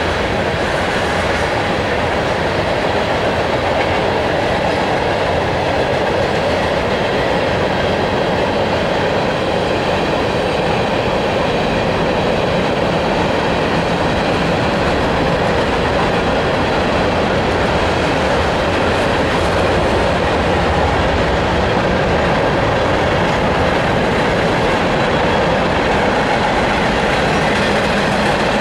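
Tank cars of a long freight train rolling past at speed: a steady, loud rumble and rattle of steel wheels on the rails.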